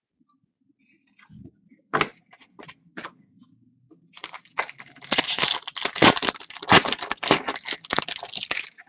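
A few light clicks and taps, then about four and a half seconds of dense crinkling and tearing: a foil-wrapped trading-card pack being torn open.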